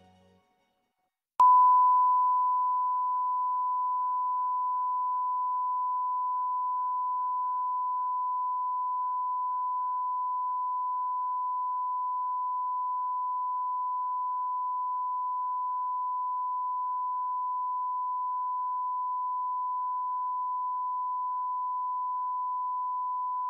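A steady 1 kHz test tone, the line-up tone a TV station broadcasts with colour bars after signing off. It starts suddenly about a second and a half in, after a brief silence, and holds one unchanging pitch.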